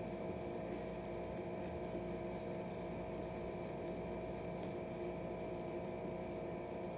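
Steady background hum with a faint hiss, made of several constant tones that neither change nor stop.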